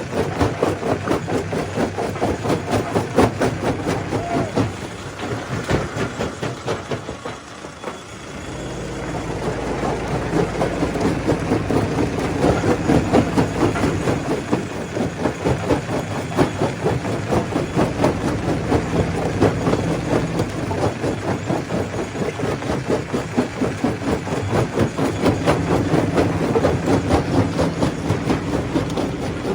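Stone crusher running, with a fast, continuous rattling clatter of rock over a steady low machine hum. It eases off briefly about eight seconds in, then picks back up.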